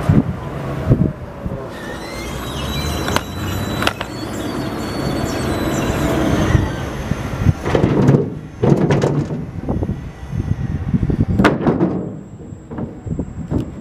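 Truck engine running with a steady rumble, then a run of irregular loud knocks and clatters from about seven and a half seconds in.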